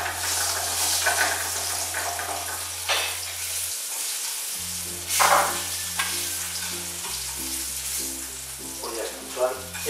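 Chopped onion and garlic sizzling in oil in a frying pan while being stirred with a spatula, with two louder scrapes about three and five seconds in.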